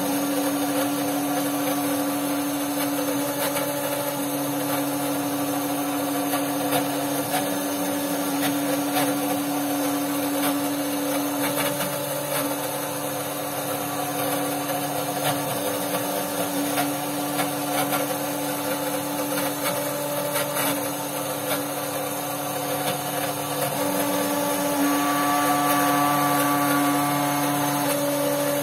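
Roland monoFab SRM-20 desktop CNC mill cutting copper-clad PCB stock with a 90° V-bit, its spindle running steadily at 9,000 RPM with a constant hum and the hiss of cutting. Higher whining tones come and go as the head moves back and forth, and the sound gets somewhat louder about 24 seconds in.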